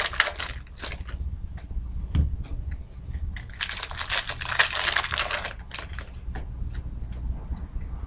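Foil wrapper of a trading card pack crinkling and tearing as it is opened by hand: a short burst of rustling at the start and a longer one around the middle.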